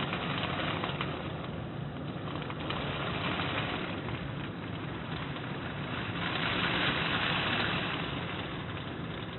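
Steady rain falling with an even hiss, swelling louder about six seconds in and easing again near the end.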